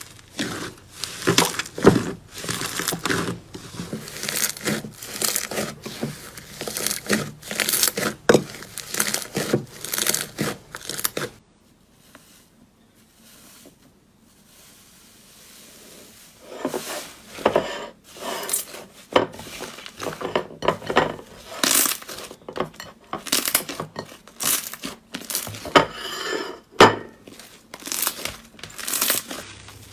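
Slime being squeezed and pressed by hand, giving a dense, irregular crackling and crinkling with sharp little pops. It goes much quieter for a few seconds partway through, then the crackling picks up again.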